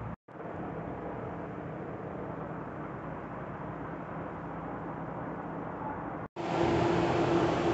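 Steady background noise with no distinct events. It breaks off briefly twice; after the second break, about six seconds in, it comes back louder and brighter, with a steady hum running through it.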